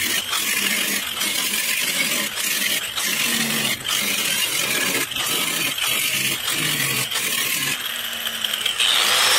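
Angle grinder with a cut-off wheel cutting slots into a cast-iron VW Beetle brake drum: a harsh, high grinding of wheel on iron. It breaks off briefly every half second or so, a run of short cuts.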